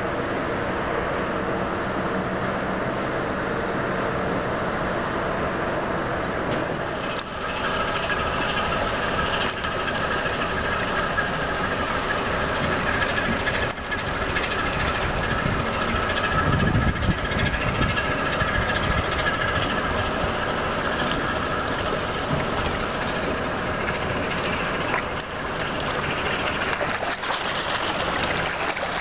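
Steady drone of cargo ships' diesel engines as an inland barge and a small coaster pass on the river, growing louder about a quarter of the way in with a low rumble loudest a little past the middle.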